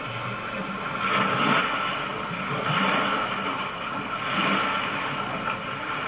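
Small waves lapping on a pebbly shoreline: a steady rushing that swells about every second and a half.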